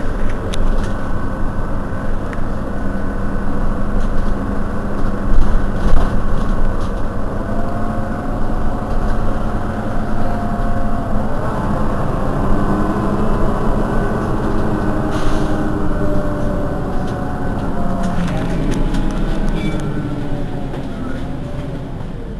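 Mercedes-Benz Citaro Facelift city bus running, its engine and drivetrain note rising and falling in pitch several times over a steady low rumble. A couple of loud knocks come about five and six seconds in.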